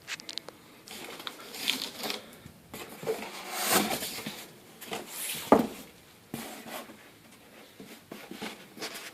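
Packaging being handled during an unboxing: irregular rustling and scraping with small knocks, and one sharp knock about five and a half seconds in.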